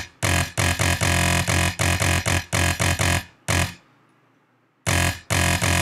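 Distorted deathstep bass patch from the Massive software synth, played as a run of short, chopped notes, with a tape-hiss noise layer mixed in to fill out the sound. The notes stop for about a second near the middle, then start again.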